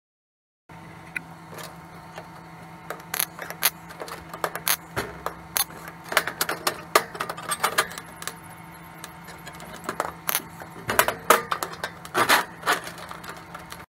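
Thin 24-gauge sheet steel being handled and positioned on a steel welding table: irregular metallic clanks, taps, rattles and scrapes, busiest in the second half, over a steady low hum.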